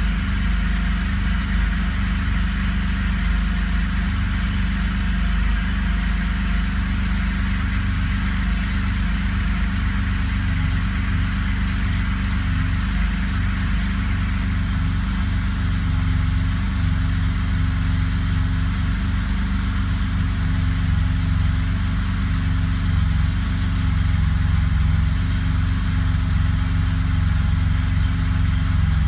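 1983 Porsche 911SC's air-cooled flat-six engine running steadily at idle, getting slightly louder near the end.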